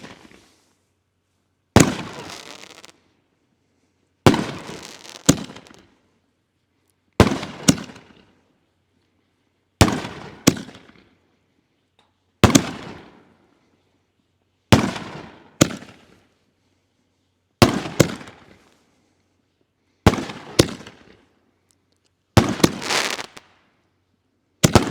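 Holy Nishiki 5-inch canister shells being fired in sequence from mortar racks: a sharp bang about every two and a half seconds, often two close together, each fading away in a long echo.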